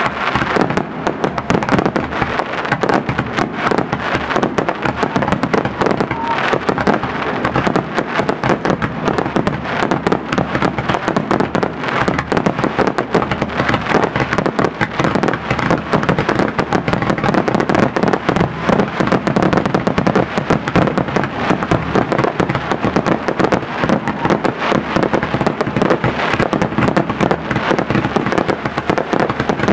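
Fireworks going off in a dense, unbroken barrage: a rapid stream of bangs and crackles with no pause.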